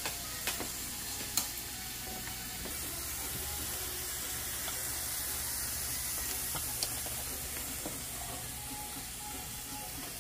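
Chopped vegetables (bell peppers, onions, garlic, celery and hot pepper) sizzling steadily as they sauté in a frying pan. A few sharp clicks stand out, one about half a second in, one near a second and a half, and one late on.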